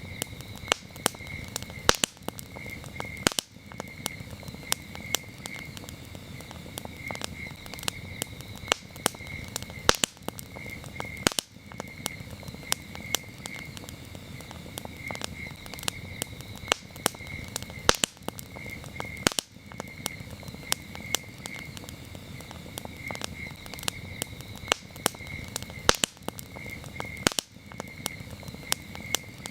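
Wood campfire crackling with frequent sharp pops over a low rumble of the flames, while crickets chirp steadily in rapid, even pulses.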